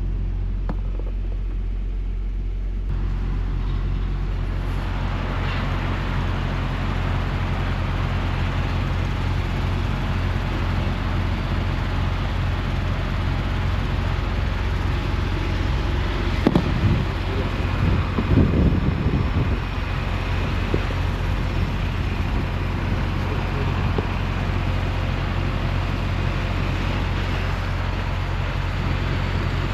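Semi truck's diesel engine running steadily, heard from inside the cab, with a wide road-noise hiss that builds in after a few seconds. A brief louder stretch of low sounds comes about two-thirds of the way through.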